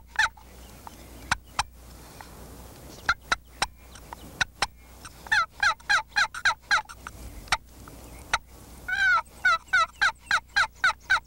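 Wooden box turkey call worked by hand, making scratchy hen yelps: short runs of a few notes with pauses between, then a faster run of about nine near the end. Each side of the box gives a different pitch, imitating a flock of hens to draw in a gobbler.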